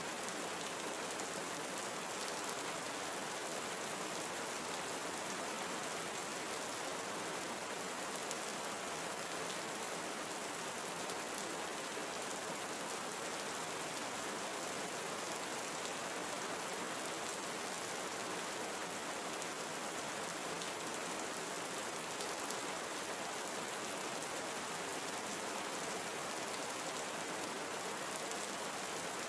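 Steady rain falling in a tropical rainforest, an even hiss of many drops with no pauses or changes.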